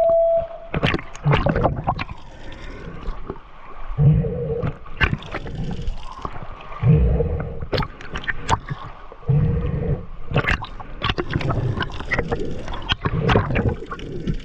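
Muffled, gurgling breaths through a snorkel, heard underwater through a camera housing, one slow breath about every three seconds. Small clicks and splashes of water come in between.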